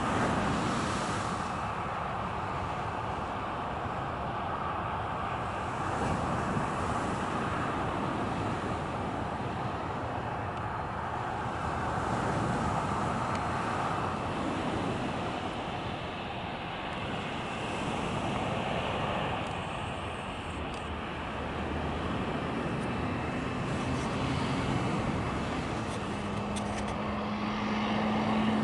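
Boeing 737-300's CFM56-3 jet engines running at low taxi power, a steady rushing jet noise. A steady low hum joins near the end.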